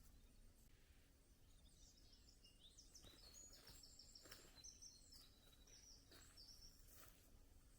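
Faint songbird singing quick runs of short, high repeated notes through the middle, with a few faint clicks.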